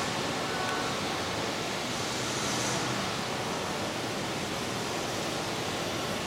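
Steady, even rushing noise in a large model railroad exhibit hall, with G scale model trains running on the layout.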